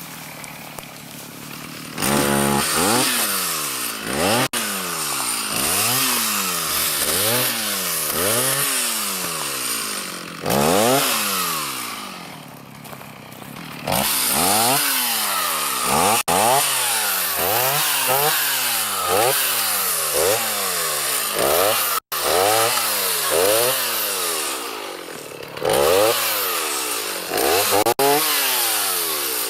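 Two-stroke chainsaw revved up and down over and over, about once a second, as in cutting or limbing. It drops back toward idle in the first two seconds, again around twelve seconds in, and briefly near twenty-five seconds.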